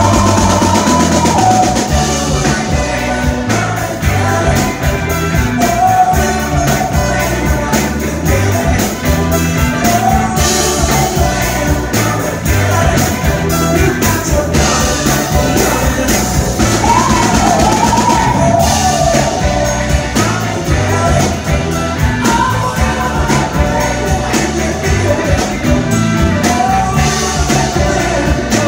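Live soul band playing: a male lead singer singing over electric guitar, bass and drums with a steady beat.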